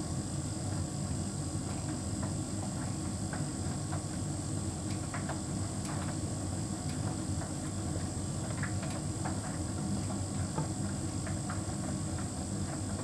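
Hotpoint heat pump tumble dryer running mid-cycle: a steady hum from the drum motor and compressor, with faint scattered clicks from the tumbling load.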